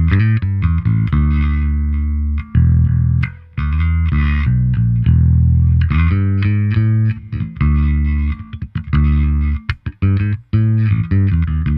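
Electric bass played fingerstyle through the GK Amplification 3 Pro plugin's default preset, a Gallien-Krueger bass amp simulation. Held low notes in the first half give way to a busier, choppier line with short breaks in the second half.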